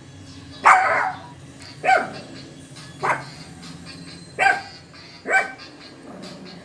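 Shih Tzu barking: five short, sharp barks about a second apart, the first the loudest and longest.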